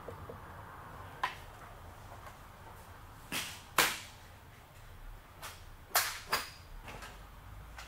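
About six sharp clicks and knocks at irregular intervals, over a faint steady low hum. The loudest come about four and six seconds in.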